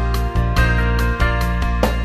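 Background music: sustained notes over a strong bass, with new notes coming in at a regular pace about twice a second.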